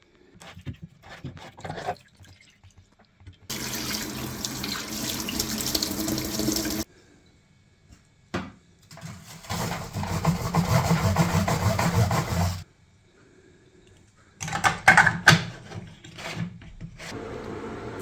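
Water running or being poured in two spells of about three seconds each, with scattered knocks and clatter before, between and after them.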